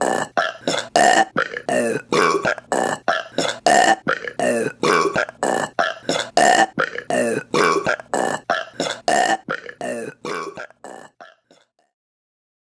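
A rapid, edited run of short, loud women's burps, about four a second, which dies away about eleven seconds in.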